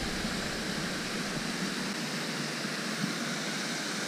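Steady rushing and splashing of water from the pond's spray fountains, with a faint click about three seconds in.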